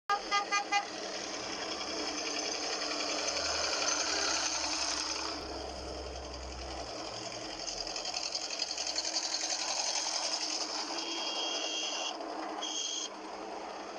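Diesel farm tractor engines running in convoy, a steady fast mechanical clatter. Four short beeps sound in the first second.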